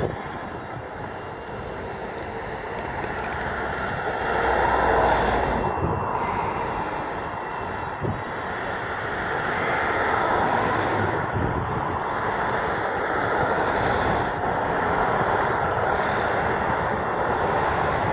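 Irish Rail Class 071 diesel-electric locomotive's EMD V12 two-stroke engine working as it hauls a train slowly along. It is a steady drone that swells louder about four seconds in and again around ten seconds.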